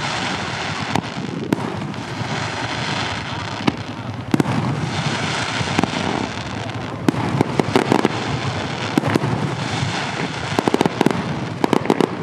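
Fireworks going off: repeated sharp bangs over continuous crackling, with a dense flurry of rapid cracks near the end.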